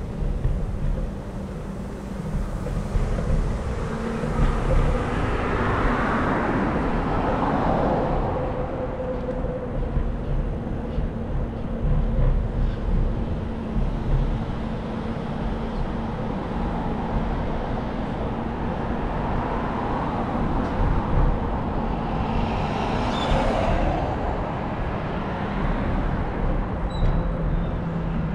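Street traffic: cars passing, two of them louder as they swell past and fade, over a steady low rumble.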